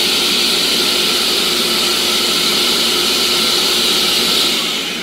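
Ninja blender running at high speed on its automatic puree program, blending cooked apples into applesauce; the program finishes and the motor cuts off near the end.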